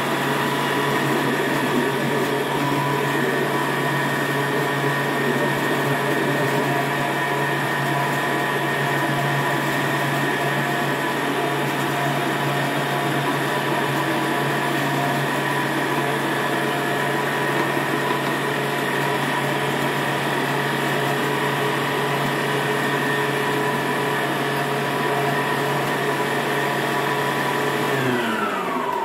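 Countertop blender motor running steadily at full speed, puréeing spinach, oats and water into a batter. Near the end it is switched off and its whine falls in pitch as the motor winds down.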